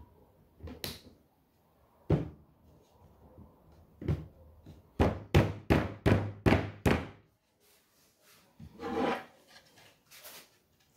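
Woodgrain laminated-board shoe-rack panels knocked into the grooves of the base by hand during a dry fit. There are a few single knocks, then a quick run of about six sharp knocks at roughly three a second in the middle.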